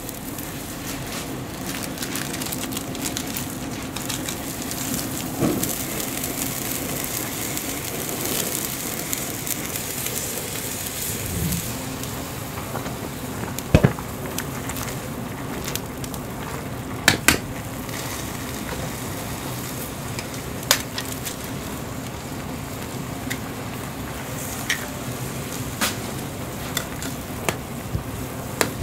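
Instant noodle broth boiling hard in a small metal pot over a gas burner, a steady bubbling hiss. There are a few sharp clinks of metal tongs against the pot as the noodles are lifted and stirred.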